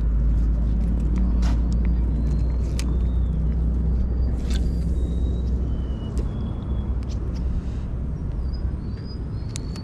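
Wind buffeting the microphone: a steady low rumble that eases after about six seconds. Short, thin, high bird chirps come and go over it, with a few sharp clicks from handling the fishing rod.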